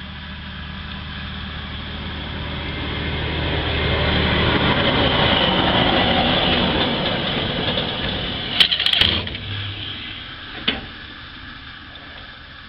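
A motor vehicle passing by: its engine and road noise swell over several seconds and then fade away. A short cluster of sharp clicks comes about two-thirds of the way through, and a single click follows a second and a half later.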